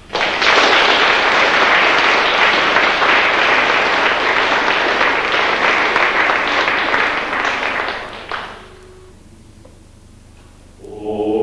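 Audience applauding, starting abruptly and dying away after about eight seconds. Near the end, a male choir starts singing.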